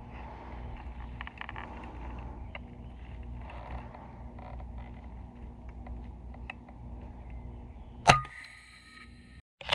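A .30-calibre FX Impact PCP air rifle fires once about eight seconds in: a sharp crack followed by about a second of ringing. Before the shot there is a steady low outdoor background with faint ticks.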